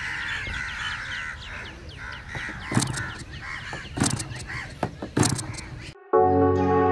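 A small glow-fuel model airplane engine is flicked over by hand with a chicken stick a few times, giving sharp knocks but not starting. Birds call throughout. About six seconds in it cuts to soft ambient music.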